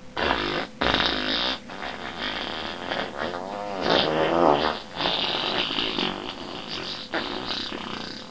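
A long, drawn-out farting noise with a wobbling pitch, breaking off briefly a few times.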